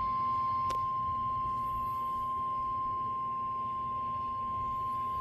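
NOAA Weather Radio warning alarm tone: one steady, unbroken high-pitched beep, the attention signal that announces a warning message, here a severe thunderstorm warning. A brief click sounds about two-thirds of a second in.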